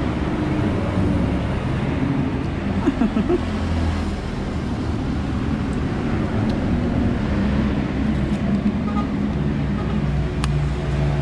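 Road traffic: a steady low engine rumble from passing vehicles that goes on throughout.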